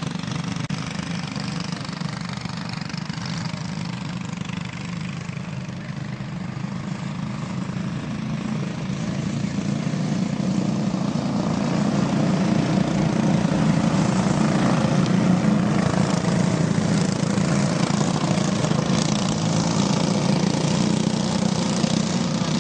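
Several racing kart engines running at speed together as the karts race on a dirt oval, the sound swelling about ten seconds in as the pack comes closer.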